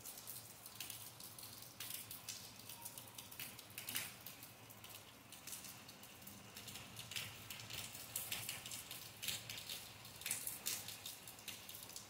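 Faint rain falling, with irregular drops tapping and dripping onto the wet palm fronds and hard ground.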